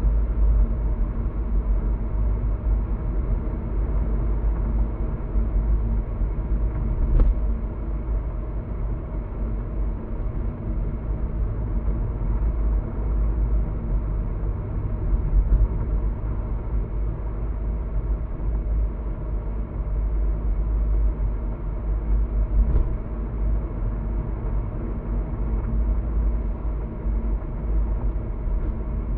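Steady low rumble of a car cruising at expressway speed: road, tyre and engine noise heard from inside the cabin. There are two faint clicks, about seven and twenty-three seconds in.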